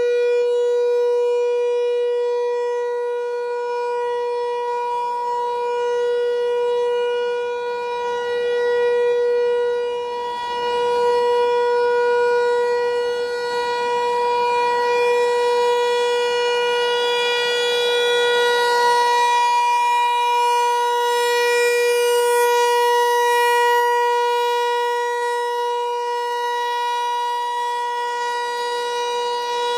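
American Signal T-128 electromechanical outdoor warning siren sounding a steady tone at full speed during a monthly test. The pitch holds constant while the loudness swells and fades slowly as the rotating horn sweeps past.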